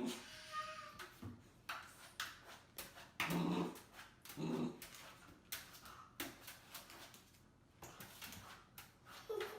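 A dog whimpering in a few short soft bursts, with a thin whine and scattered small clicks and rustles between them.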